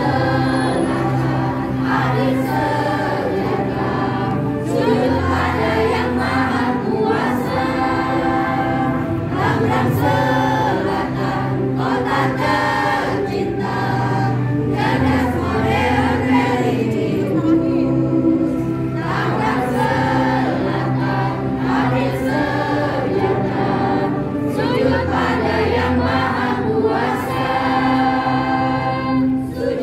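A choir of women's voices singing a hymn together, phrase after phrase, over long-held low accompaniment notes.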